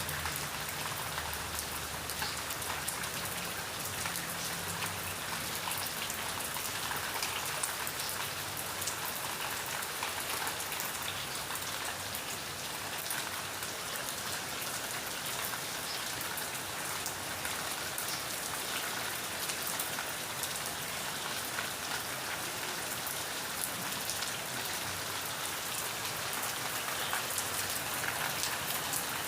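Steady rain falling, with many small drops pattering on a surface in a dense, even hiss.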